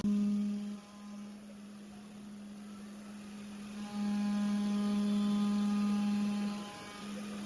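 Horizontal glass CNC machining centre running, giving a steady electric hum at one pitch. It swells louder at the very start and again for about three seconds midway.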